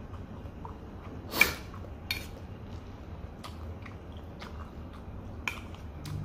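Wooden chopsticks clicking and scraping against a stainless-steel bowl as fried noodles are picked up. There are a few sharp clicks, and the loudest is about one and a half seconds in.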